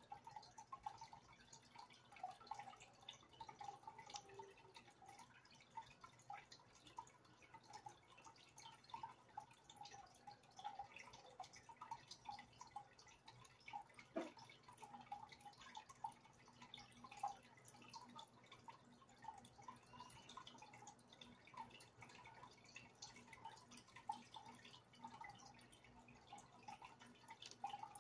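Faint aquarium water sounds: a steady, irregular run of small drips and bubble pops, with one sharp click about halfway through.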